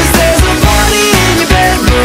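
Loud pop-rock dance song with a steady drum beat and held melodic notes, an instrumental stretch between sung lines.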